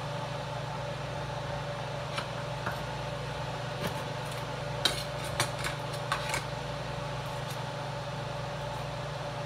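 Kitchen range-hood vent fan running with a steady hum, over which a knife taps irregularly on a wooden cutting board while garlic is roughly chopped, from about two seconds in until near the end.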